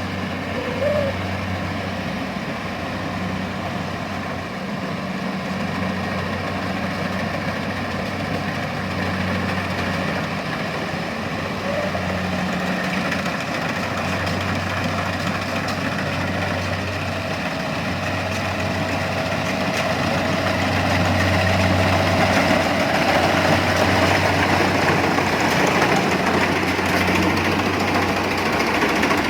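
Engine running steadily with a low hum, growing louder about twenty seconds in, when a faint whine joins it.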